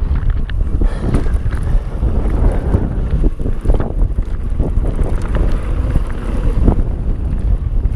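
A mountain bike descending a dirt trail at speed: wind rushing over the microphone, tyres rolling over packed dirt, and frequent rattles and knocks from the bike over bumps.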